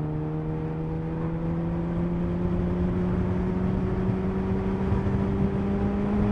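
Suzuki Hayabusa's inline-four engine pulling steadily in one gear, its pitch rising slowly as the bike gathers speed, over wind and road noise.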